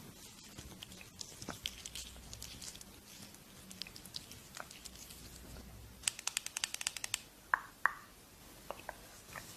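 Quiet close-miked skincare ASMR handling: soft sticky crackles and light taps of hands and gel on skin. About six seconds in comes a rapid run of around a dozen sharp taps, followed by two short ringing clicks.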